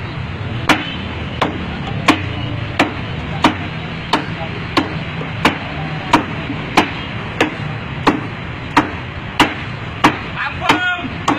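A heavy chopping knife (golok) striking wood in quick, even blows, about three chops every two seconds, each a sharp crack.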